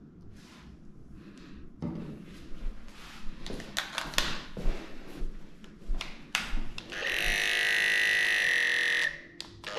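Clicks and knocks of metal clipper blades being handled and picked out of a blade case. About seven seconds in, an electric dog-grooming clipper is switched on and runs with a steady high hum for about two seconds. It stops, then starts again near the end.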